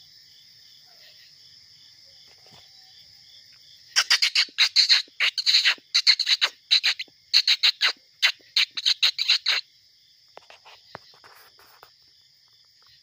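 Crickets chirping steadily. About four seconds in, a bonfire with a near-empty butane can in it breaks into a rapid run of loud, sharp crackles and sputters lasting about five seconds, then settles back.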